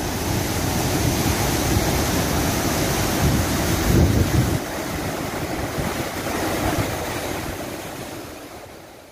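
Heavy rush of water pouring from a hydroelectric dam's outlet into a river, a steady noise with wind on the microphone, fading out over the last two seconds.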